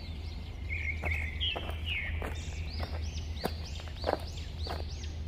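Cartoon forest ambience: birds chirping in a run of short rising-and-falling calls, about two a second, over a steady low hum, with light footsteps every half second or so.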